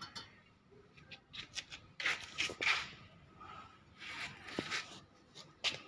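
Short, irregular bursts of metal scraping and clicking from a reel mower grinding machine being worked by hand, with no steady motor running.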